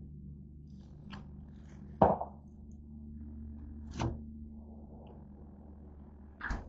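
Three hard knocks while a George Foreman grill is handled, about two seconds apart, the first the loudest, over a steady low electrical hum.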